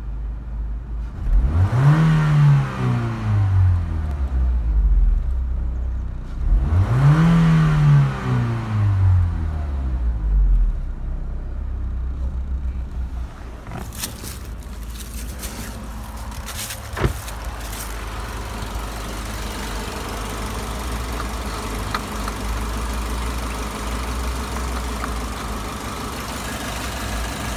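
Renault Megane II's 2.0-litre 16-valve F4R770 four-cylinder petrol engine idling and revved twice, each rev rising quickly and falling back to idle. It then idles steadily, with a few sharp knocks and clicks midway.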